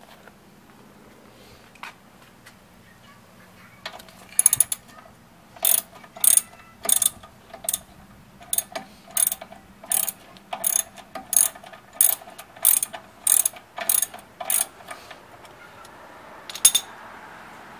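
Socket ratchet wrench clicking in short bursts, roughly three every two seconds, as it turns out the rear brake caliper bolts. The clicking starts about four seconds in and stops near the end after one last burst.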